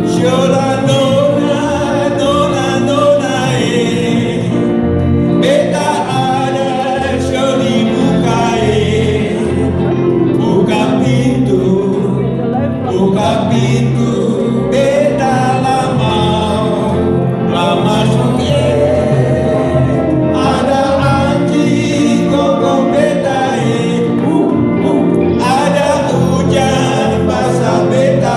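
Live band playing a song: several men singing together into microphones over electric guitars and a bass line.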